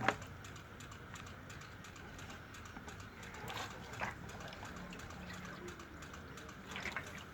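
Faint steady background noise with a few soft clicks and knocks, one about halfway through and one near the end.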